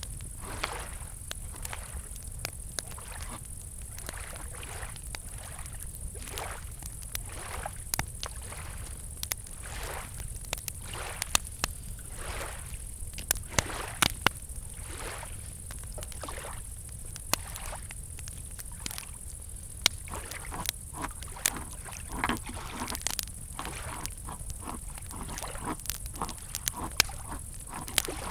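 Campfire crackling with scattered sharp pops, over small lake waves lapping gently and a steady high-pitched chorus of crickets.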